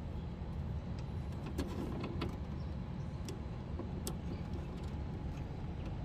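Steady low background rumble with a few faint clicks of wiring and a multimeter test lead being handled.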